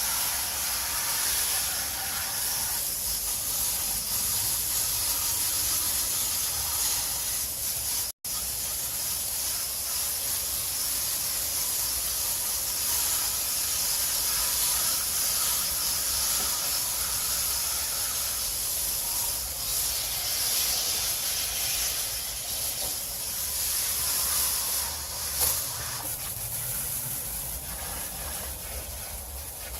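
Garden hose spraying water steadily onto an air-conditioner coil to rinse out packed cottonwood fluff; a hissing spray with a brief break about eight seconds in.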